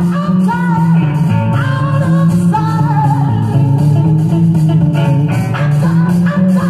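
Rock song with singing and guitar playing from a 45 rpm vinyl single on a turntable.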